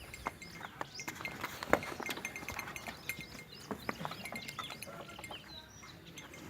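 Farmyard ambience: small birds chirping over and over, with scattered sharp clicks and knocks.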